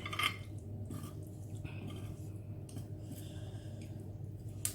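Faint eating sounds: chewing of spicy Korean instant noodles with a few light clicks, the sharpest just after the start and near the end, over a steady low hum.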